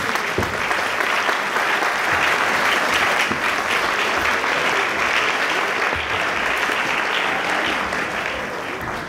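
Audience applauding: dense, steady clapping that starts to die away near the end.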